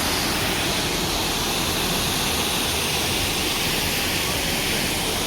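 Waterfall: water falling and rushing as a steady, even noise.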